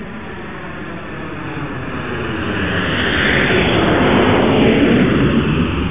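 Airplane fly-by sound effect: a rushing engine noise that swells to its loudest about four to five seconds in and then begins to fade.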